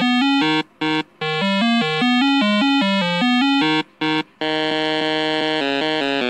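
Synthesized electronic music: a bright, buzzy melody in quick stepping notes that cuts out briefly twice, about one second in and again about four seconds in. It then gives way to held synth notes with a slower-moving line beneath.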